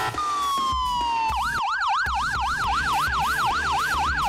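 Electronic police siren: one falling tone, then from about a second in a rapid yelp of about four wails a second.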